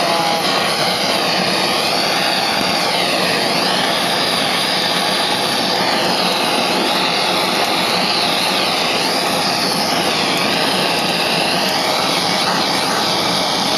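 Handheld gas torch (kitchen blowtorch) running with a steady rushing hiss, searing the fugu for tataki.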